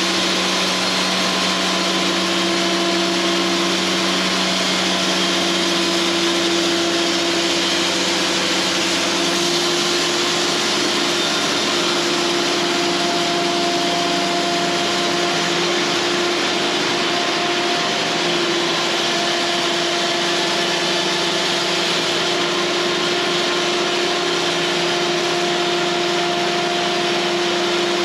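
Cooks AC36 bandsaw mill running steadily, its band blade sawing pine lumber. The machine's pitch shifts slightly about nine seconds in.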